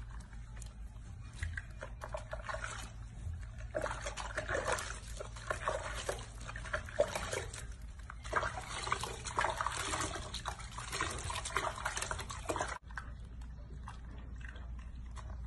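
Water sloshing, splashing and trickling in a sink as a baby macaque is washed by hand, in many short irregular splashes. About 13 s in, the splashing stops abruptly and gives way to a quieter steady background.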